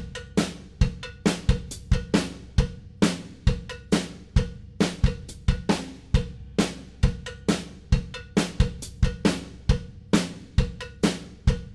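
Background music: a drum-kit beat with kick, snare and cymbal hits repeating steadily at about two to three strikes a second.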